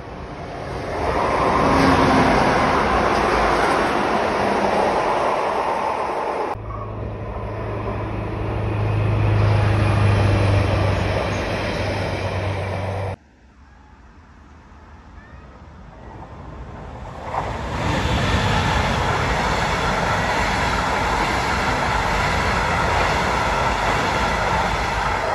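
Rail traffic heard in three cuts: the rumble of a passing train swelling about a second in, then a yellow track-maintenance machine running with a steady low engine hum, then a yellow-and-blue metronom double-deck regional train rolling past with an even wheel-on-rail rumble near the end.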